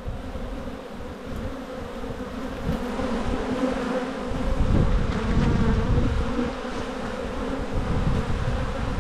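Honeybees buzzing in a steady hum over an opened hive as a brood frame is lifted out. About halfway through, a low rumble joins and the sound grows louder.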